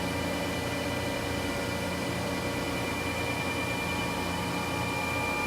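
Froriep 393-inch CNC vertical boring mill running under power: a steady mechanical hum over a noise bed, with several held high tones.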